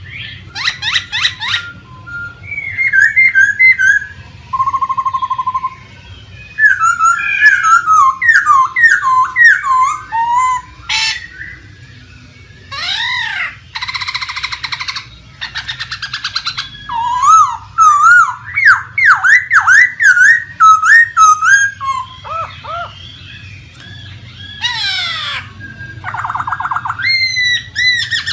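Laughingthrush singing a long, varied song: loud whistled phrases that slide up and down, quick trills and bursts of rapid harsh repeated notes, broken by short pauses.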